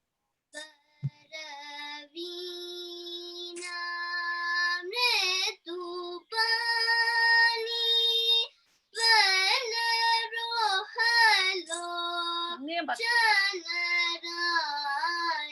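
A young singer singing Carnatic vocal lines over a video call, held notes decorated with quick wavering pitch ornaments (gamakas), the sound dropping out between phrases. The shruti box drone behind her is only faintly heard, too feeble in the mix.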